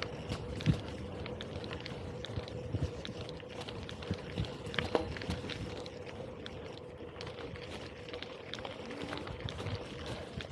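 Gravel bike rolling over a rough track: tyres crunching on gravel and the bike rattling with many irregular small knocks, over a faint steady hum.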